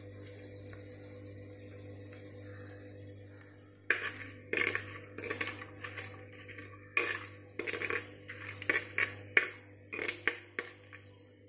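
Slotted metal spoon scraping and clinking against the inside of a clay pot while stirring whole spices frying in oil, in irregular sharp strokes that start about four seconds in. Before that only a low steady hum.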